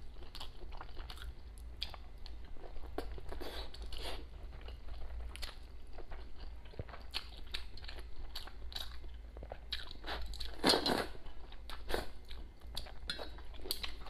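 A person eating rice noodles close to the microphone: steady chewing with many short wet mouth clicks and smacks, and one louder, longer slurp about eleven seconds in.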